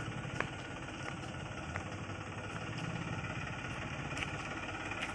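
Engine running steadily with a fast, even low pulse and a few light ticks.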